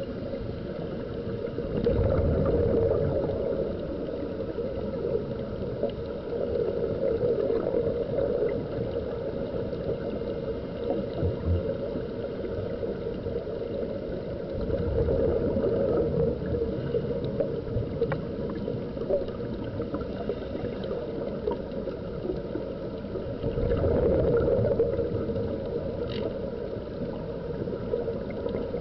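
Muffled underwater recording: a steady rush and gurgle of air bubbling out of diving helmets, swelling louder every several seconds, over a faint steady hum.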